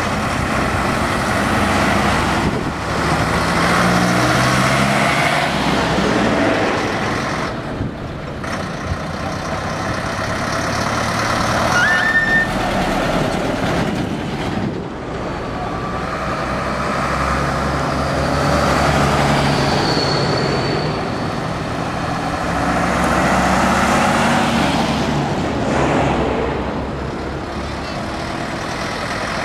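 Old diesel trucks driving past one after another, each engine swelling up and fading away as it goes by. A short high tone sounds about twelve seconds in.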